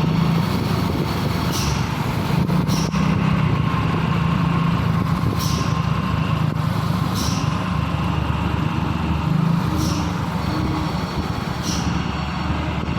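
Road traffic: motor vehicle engines running with a steady low hum, with short high-pitched sounds recurring every second or two.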